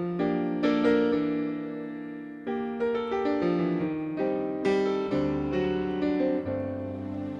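Soft piano music: single notes and chords that strike and fade.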